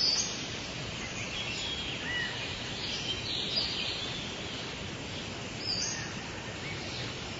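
Short bird chirps, a few scattered through, over a steady hiss.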